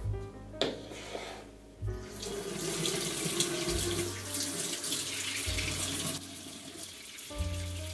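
Water running from a bathroom faucet into a sink as hands are wetted under the stream, starting about two seconds in and loudest for the next four seconds. Background music with a bass line plays underneath.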